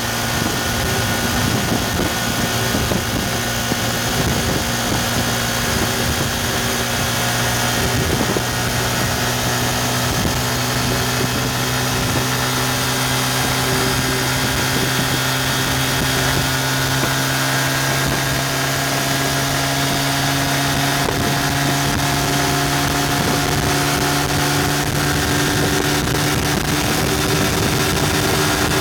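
Yamaha FZ150i's single-cylinder engine pulling hard at high revs, about 7,500 to 9,500 rpm, its pitch rising slowly and steadily as the motorcycle accelerates from about 100 to 128 km/h. A steady rush of wind noise runs underneath.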